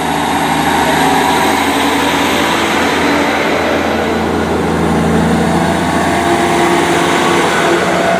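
Class 158 diesel multiple unit's underfloor diesel engines working hard as the train pulls away from the platform. The sound swells in the first second, then holds loud and steady.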